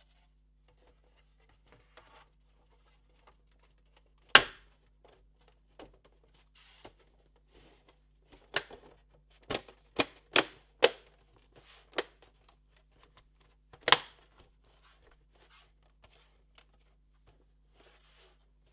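Plastic bottom cover plate of a PS4 Pro being fitted onto the console: scattered sharp plastic clicks and knocks with light scraping, a loud snap about four seconds in, a quick run of snaps a few seconds later, and another loud one about two-thirds of the way through.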